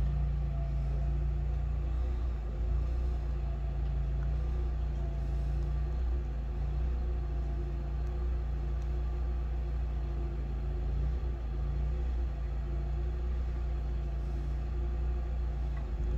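An engine running steadily at a constant speed, a low, even hum that does not rise or fall.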